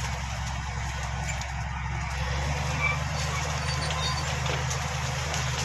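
Shantui SD16 bulldozer's diesel engine running steadily, its note changing about two and a half seconds in.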